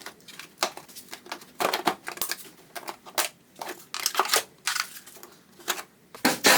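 Hand work in an engine bay as the air intake is being taken off: irregular short clicks, clacks and rustles of tools and parts being handled, several a second.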